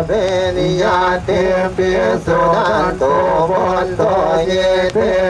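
Melodic chanting: held notes in a sing-song line, broken by short pauses, over a steady low hum.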